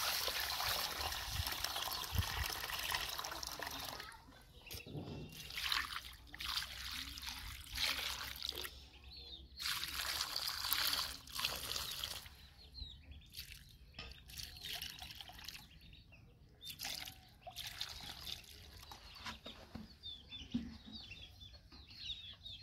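Water running and splashing in irregular on-and-off bursts, with faint short chirps near the end.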